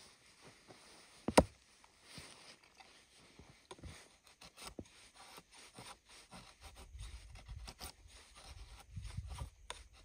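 Fixed-blade knife splitting thin kindling: a sharp crack or knock about a second in, then quieter scraping and small cracks of wood fibres as the blade is worked down through the stick.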